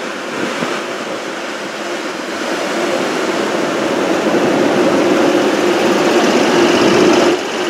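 EWS-liveried main-line locomotive pulling away under power: a steady mechanical drone with a held hum that grows gradually louder as it gets going.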